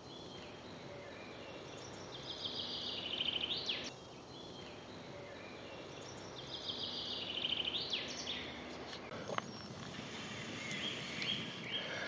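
A songbird sings twice, each phrase a rapid high trill ending in a quick flourish, over quiet woodland background. A single sharp click comes about nine seconds in.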